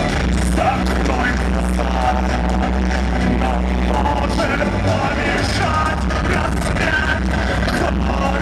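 A rock band playing live through a club PA: a male vocalist singing into a microphone over synthesizer and guitar, with a steady low bass underneath.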